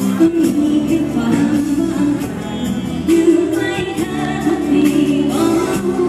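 Live Thai band music over a stage sound system, with a woman singing into a microphone over a steady drum beat.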